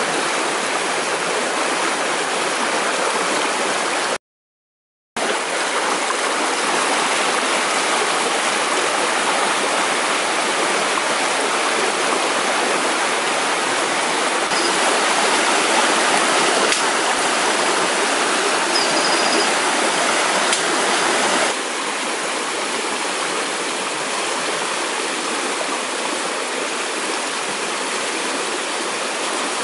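Stream water rushing steadily. It cuts out completely for about a second near the start, and drops slightly in level about two-thirds of the way through.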